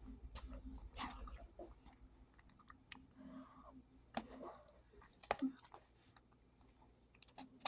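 A person chewing mac and cheese close to the microphone, with irregular wet mouth clicks and smacks.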